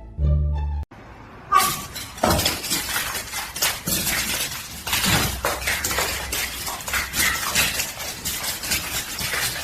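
Music cut off about a second in, then a long stretch of dense clattering and crackling noise with many sharp knocks, like things rattling and breaking.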